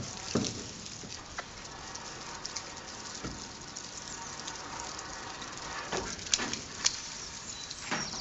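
Water from a water-fed pole brush spattering and pattering down off the fascia as steady noise. Scattered sharp clicks and knocks come through it, several close together near the end.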